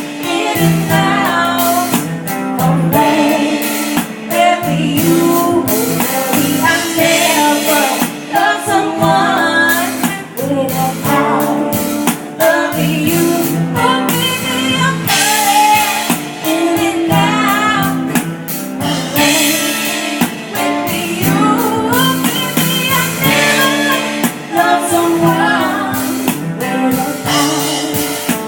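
A band playing a mellow song: a singer over guitar and a drum kit keeping a steady beat.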